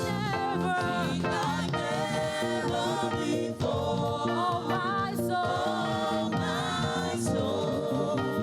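Gospel choir singing praise music, with wavering sung lines over steady instrumental backing.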